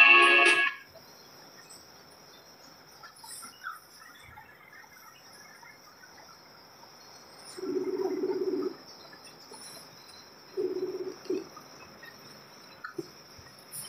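A brief burst of music from a phone speaker, cut off within the first second, then low tones from a phone placing a Messenger call: one tone of about a second, then two shorter ones. A faint steady high hum runs under it all.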